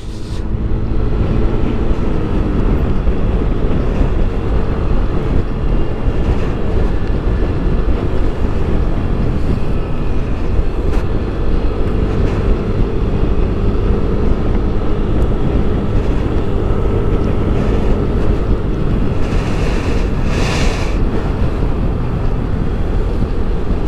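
Wind rushing over the microphone with a Yamaha Aerox scooter's engine running underneath, riding steadily at road speed.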